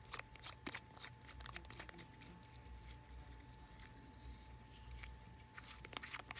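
Faint clicks and light scraping from fingers handling a Hampden pocket watch's base-metal case, with a cluster of sharper clicks near the end.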